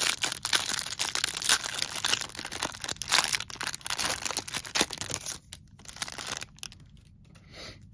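Clear plastic cellophane wrapping of a Prizm football hanger box card stack crinkling and tearing as it is ripped open by hand. The crackling is dense for about five seconds, then thins to a few scattered crinkles.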